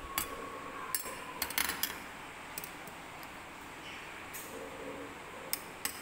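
Metal kitchen tongs clicking and clinking against a glass jar. There are a few scattered clinks, a quick run of them about a second in, and two more near the end.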